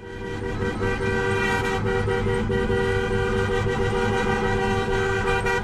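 Vehicle horns blaring in one long, unbroken honk with several steady tones at once, over the low rumble of engines and traffic.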